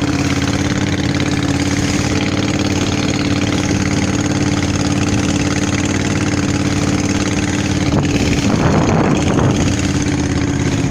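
Boat engine running steadily, with a brief rush of noise about eight and a half seconds in.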